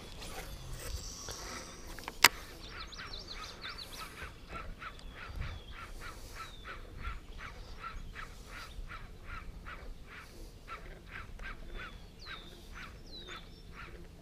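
A single sharp click about two seconds in, then a long, even series of short animal calls, about two to three a second.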